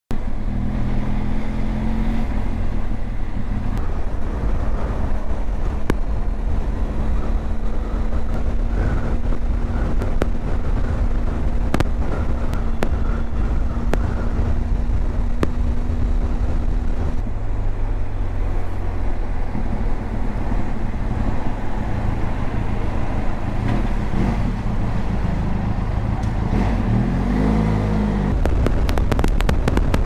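Motorcycle engine running steadily at road speed, heard onboard under heavy wind rush over the microphone. Near the end the engine note briefly dips and rises again.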